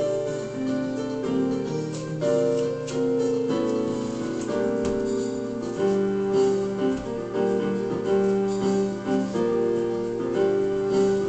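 Background piano music, a slow run of held notes and chords changing about every second.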